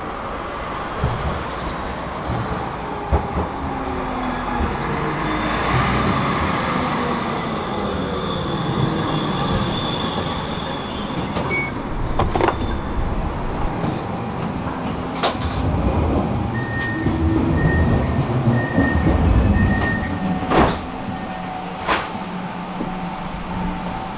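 Electric tram running on rails: a steady rumble with a motor whine that shifts in pitch, and sharp clicks from the wheels over rail joints in the second half. A short series of high beeps sounds about two-thirds of the way through.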